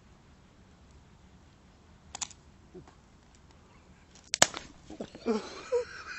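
Clicks and knocks of the smoking HPI Savage Flux RC truck's plastic chassis being handled: a light click about two seconds in, then a sharp, loud click about four and a half seconds in. After it comes a noisy hiss with voices.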